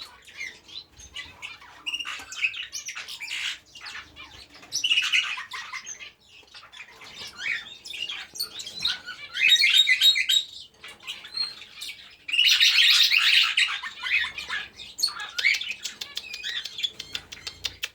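English budgerigars chattering and squawking, with scratchy warbling that swells into louder bursts about five seconds in, around ten seconds, and again from about twelve to fourteen seconds.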